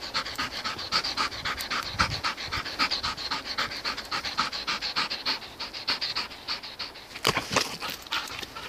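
Dog panting rapidly and steadily close up, about five quick breaths a second, with a couple of louder breaths about seven seconds in.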